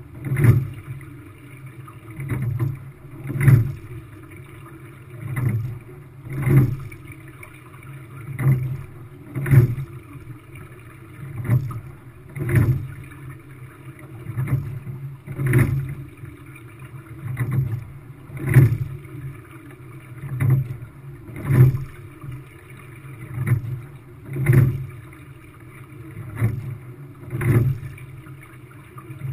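Quad sculling shell being rowed at a steady, easy rate: each stroke, about every three seconds, brings a pair of knocks and swishes about a second apart from the oars and oarlocks, over a steady rush of water along the hull.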